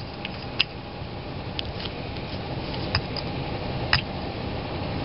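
A few light clicks from a nail polish bottle and brush being handled while crackle polish is painted on, over a steady background hum.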